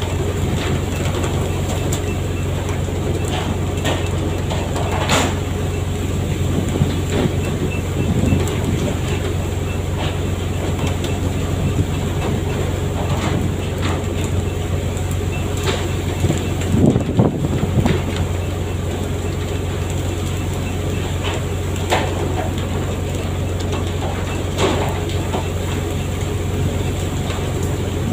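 Fishing boat's engine running steadily with a deep hum, with a scattering of sharp knocks on deck and a brief cluster of louder thuds past the middle.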